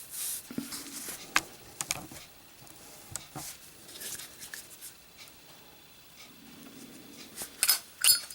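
Brass Zippo lighter being handled in a lit drop test: scattered light clicks and taps, then a cluster of sharp metallic clicks near the end as the lighter falls and its lid snaps shut.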